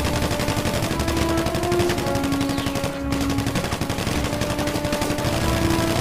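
Automatic rifle gunfire sound effect, a fast, unbroken stream of shots, over background music with held notes.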